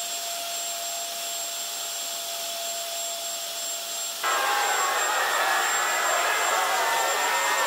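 Two 50 mm electric ducted fans on an RC car running: a steady rush of air with a thin whine. About four seconds in they step up to a louder setting with a busier whine. The fans are sucking air from under the car's undertray to make downforce.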